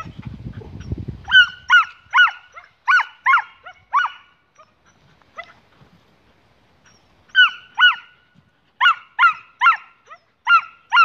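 Dog barking excitedly in play: about fifteen short, high-pitched barks in quick runs of two to four, with a lull in the middle. A low rumble of wind on the microphone in the first second or so.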